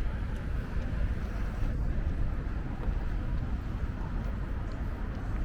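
Wind buffeting the microphone: a heavy, uneven low rumble over faint outdoor ambience.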